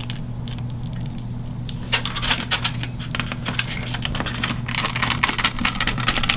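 Quick small clicks and scrapes of a metal screw and washer being fitted and screwed down to fasten a cellular module in an alarm control panel, starting about two seconds in, over a steady low hum.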